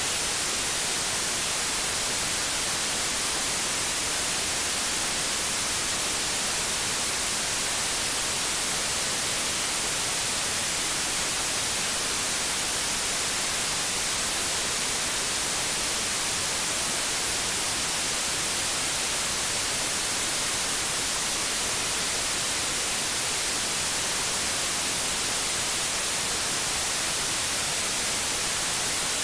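Steady white noise: an even, bright hiss that does not change.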